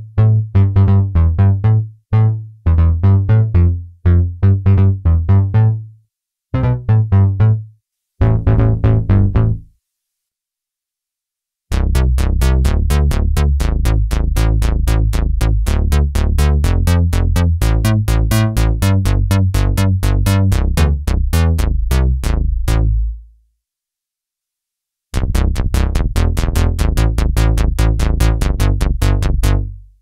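Roland Jupiter-4 software synthesizer playing bass presets: short, punchy bass notes in repeated phrases with brief gaps. After a short pause, a different bass patch plays a fast, steady run of short notes, each with a sharp, clicky attack, then a second run near the end.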